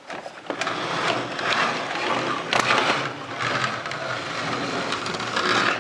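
Continuous rustling and scraping handling noise, with small plastic clicks and knocks, as the large plastic toy and the handheld camera are moved around.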